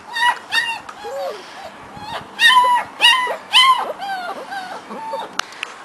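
Four-week-old puppy whining and whimpering in a string of about a dozen short, high, arching calls, loudest about halfway through.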